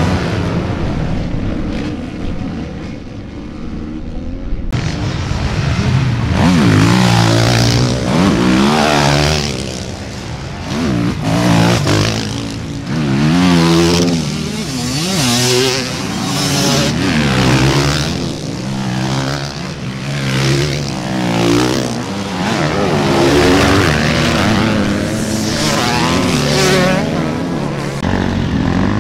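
Motocross bikes' engines revving hard, the pitch climbing and dropping over and over as the riders work the throttle and shift. Fainter for the first few seconds, then loud after a sudden change about five seconds in.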